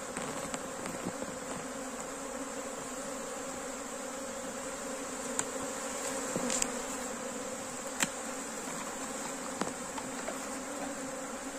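A honeybee swarm buzzing steadily, the dense hum of many bees flying close around. A few short sharp clicks break in, the loudest about eight seconds in.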